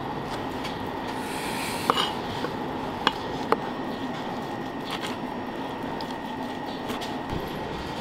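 Kitchen knife slicing and dicing raw tuna on a plastic cutting board, with three sharp taps of the blade on the board between about two and three and a half seconds in, over steady background noise.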